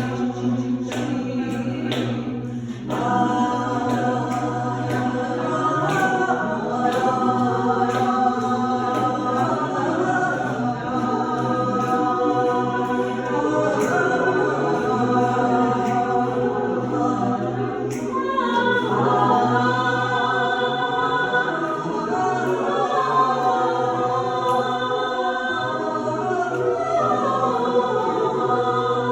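Choir singing in harmony over a steady held low note.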